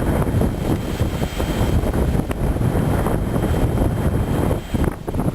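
Strong wind buffeting the camera microphone, a loud, low, gusting rumble.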